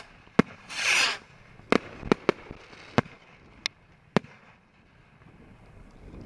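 Consumer fireworks: a hissing whoosh about a second in, among a string of sharp pops and cracks, about seven of them over the first four seconds.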